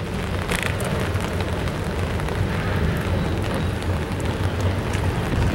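Double-stack intermodal freight cars rolling slowly over a steel girder railway bridge: a steady low rumble with a noisy hiss above it.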